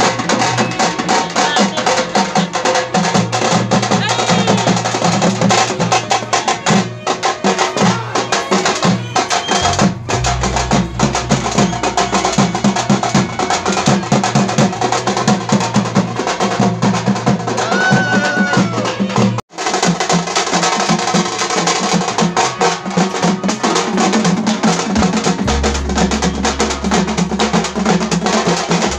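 Dappu frame drums beaten hard with sticks in a fast, dense folk rhythm, breaking off for an instant a little past the middle.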